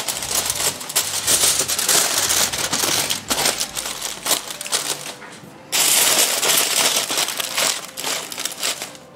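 Aluminium foil crinkling and crackling as it is folded and crimped tight by hand into a sealed packet, with a short lull a little past halfway.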